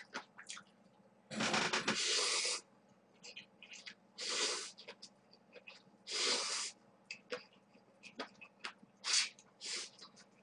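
Buckwheat somen noodles being slurped in noisy pulls: three longer slurps, then two short ones near the end, with small chewing sounds and clicks between.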